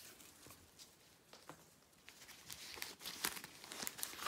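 Faint rustling and crackling of a rolled diamond painting canvas being handled and unrolled once its ribbon is off, getting busier and louder in the second half.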